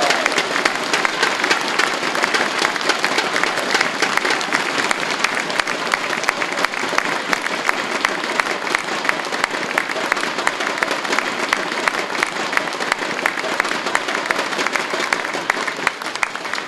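Audience applauding steadily, dense clapping that thins out and fades near the end.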